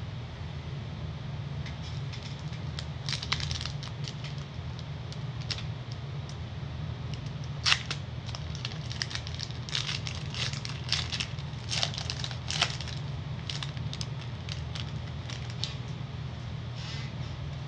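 Pokémon booster pack's foil wrapper being crinkled and torn open, a run of sharp crackles and rips with the loudest about 8 seconds in, over a steady low hum.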